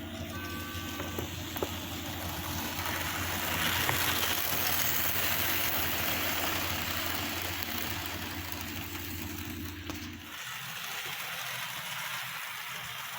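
Rivarossi HO-scale 4-6-4 Hudson model locomotive running on layout track: a steady motor hum with wheel and track noise that grows louder in the middle. The hum cuts off suddenly about ten seconds in as the locomotive stops.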